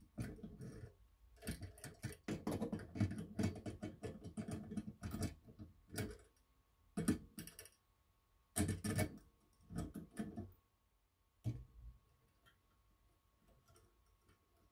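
Steel pliers and the small steel parts of a sewing machine's thread tension assembly (disc, washer, spring) clicking and scraping together as they are fitted onto the tension stud. The clicks come in quick, irregular clusters and die down to faint ticks about two-thirds of the way through.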